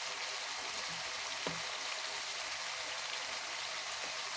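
Chopped onions and tomatoes frying in oil in a kadai, a steady sizzle, with one light tap about a second and a half in.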